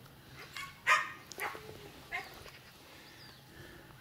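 A dog barking: three short barks in the first half, the first the loudest.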